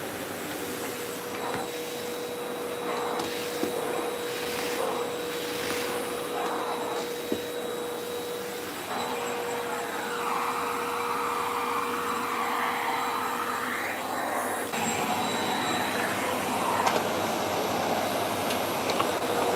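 Vacuum cleaner running continuously with a steady motor whine under its rushing air noise, the noise shifting in tone a couple of times as it is worked.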